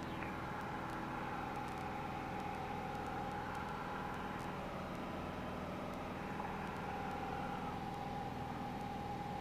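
Piper PA-28's piston engine and propeller heard from inside the cabin, a steady drone at climb power after a go-around.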